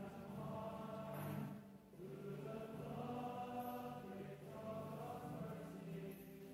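Hymn singing by a group of voices, slow phrases of long held notes with a short pause for breath about two seconds in.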